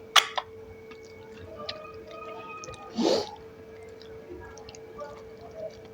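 Close-miked eating sounds: wet chewing and small mouth clicks, with a sharp smack just after the start and a short breathy burst about three seconds in.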